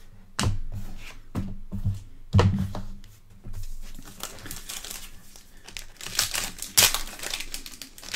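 A few sharp knocks in the first seconds, then a trading-card pack's foil wrapper crinkling and tearing as it is ripped open by hand, loudest about six to seven seconds in.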